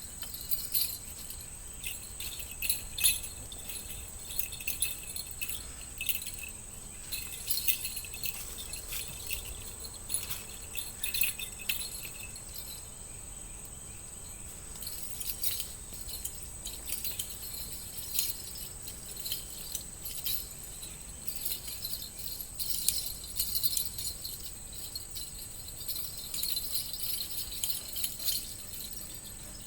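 A steady, high insect drone runs throughout, with irregular light jingling and tinkling clinks scattered over it.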